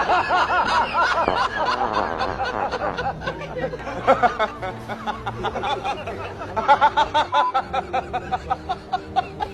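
Laughter and snickering in bouts: a long laugh at the start, another bout about four seconds in, and a run of quick, rhythmic pulses about seven seconds in.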